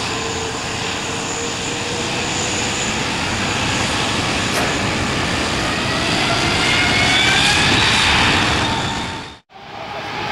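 Jet engines of an Airbus A380, Rolls-Royce Trent 900s, running with a steady rush, their whine rising in pitch from about six seconds in as the engines spool up. The sound cuts out suddenly near the end and comes back.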